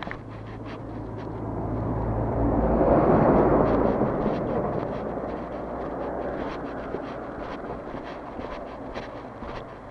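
A motor vehicle passing close by: engine and tyre noise swell to a peak about three seconds in, then slowly fade away.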